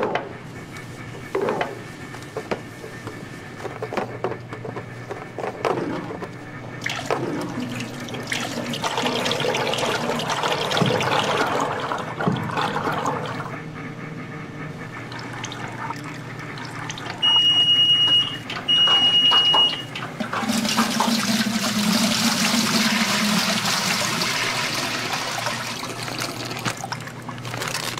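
Frying oil pouring from a square metal tin into a stainless deep fryer, a long rushing, splashing stream. Clicks and knocks come first as the tin's spout is opened, and two long electronic beeps sound about two-thirds of the way through.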